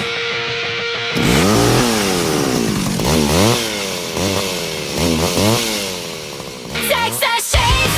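Chainsaw revving up and down several times, its pitch rising and falling about once a second, after a brief held steady tone. The band comes back in near the end.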